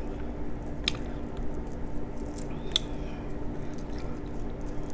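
Boiled shrimp being peeled by hand, the shell cracking and squishing in the fingers with a couple of sharp clicks, one about a second in and one near three seconds in. A steady low hum runs underneath.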